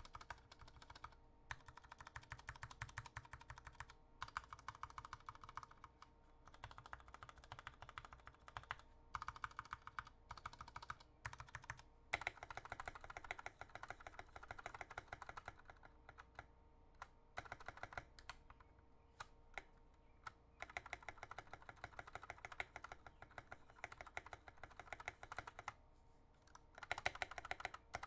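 Mechanical keyboard keys clacking under rapid repeated presses, with stabilizers and switches that are not lubed. The stabilized keys are being tested. The clacking comes in runs of several seconds with short pauses between them.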